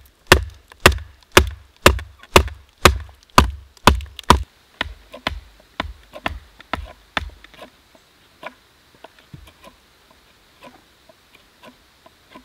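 A knife being batoned through a small wooden billet to split it: a wooden baton strikes the knife's spine about twice a second, loud for the first four seconds or so, then lighter blows that thin out after about seven seconds into occasional faint knocks.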